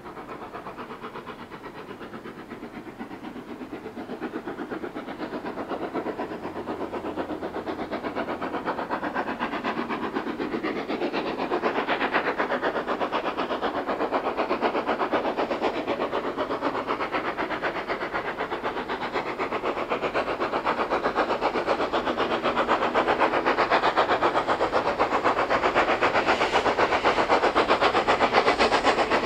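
Steam locomotive 3526, a New South Wales 36 class 4-6-0, approaching under steam: a quick, even run of exhaust chuffs that grows steadily louder as it draws near.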